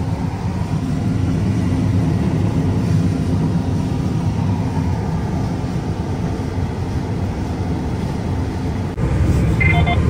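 John Deere combine running steadily while harvesting soybeans, heard from inside the cab: an even, low machine drone from the engine and threshing drives. Near the end a voice begins.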